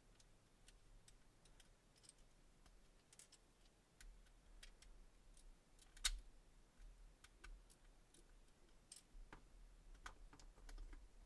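Faint, scattered small clicks and ticks of a small Phillips screwdriver turning out the tiny screws of a plastic car key fob, with one sharper click about six seconds in.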